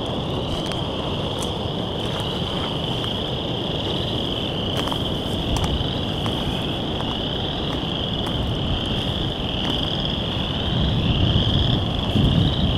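A dense chorus of frogs calling, merging into one steady high-pitched ringing, over wind rumble on the microphone that grows louder near the end.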